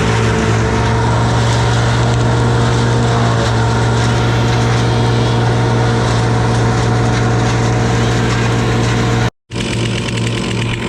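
An engine running at a steady speed with a strong, even hum. About nine seconds in it cuts out completely for a split second, then comes back slightly changed.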